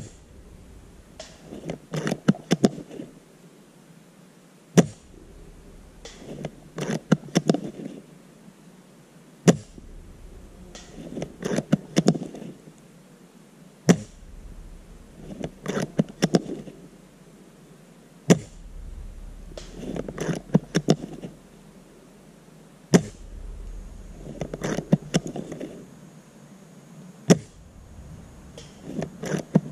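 Spring-powered bolt-action airsoft sniper rifle fired seven times, one sharp shot about every four and a half seconds. Between shots the bolt is worked to re-cock the spring and chamber the next BB, a short clattering rattle a second or two after each shot.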